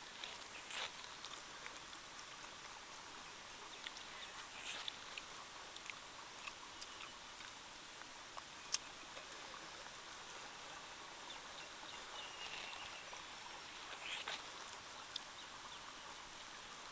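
Faint smacks and clicks of people eating rice and chicken gravy by hand, scattered over a steady high hiss. The sharpest click comes about 9 seconds in.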